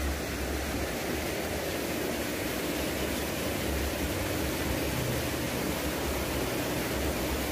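Steady rush of river water flowing over a concrete weir, with a low rumble coming and going underneath.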